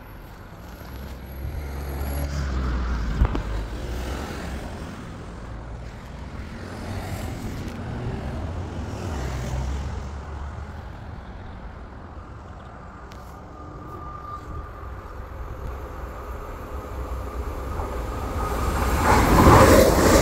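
Low traffic rumble swelling and fading twice, then an X60 electric commuter train approaching with a thin whine and rising rail noise, passing loudly near the end.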